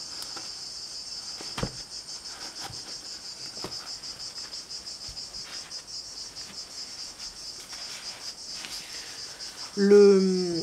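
Crickets chirping in a steady high trill, with light clicks and rustling as a satin pouch and a deck of cards are handled. Near the end comes a short vocal sound from a woman, falling in pitch, the loudest moment.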